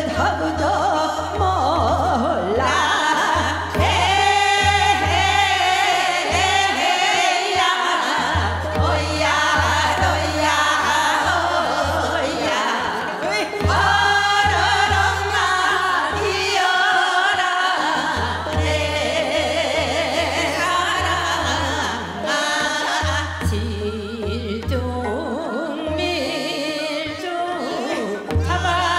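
A woman singing a Korean Seodo sori folk song with a wide, wavering vibrato, over instrumental accompaniment with a low pulsing beat.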